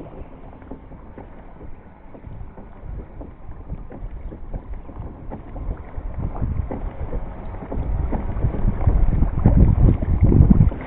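Kayak moving through water with wind buffeting the microphone; the low rumble of the wind gusts builds over the last few seconds.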